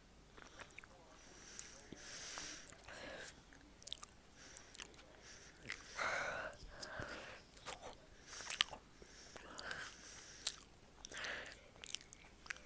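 Close-up mouth sounds of chewing a soft frosted brownie: many wet smacking clicks, with a few loud, noisy breaths in between.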